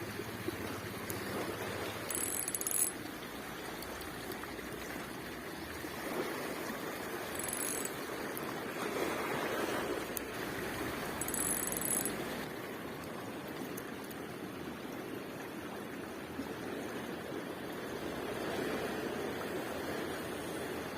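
Surf washing on a beach, swelling and easing, while a fishing reel is cranked to retrieve a lure, with a few brief high-pitched whirs.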